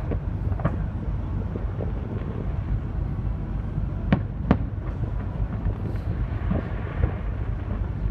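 Distant fireworks going off as a string of sharp bangs, the two loudest about four seconds in, half a second apart. Under them runs the steady low rumble of the ferry boat.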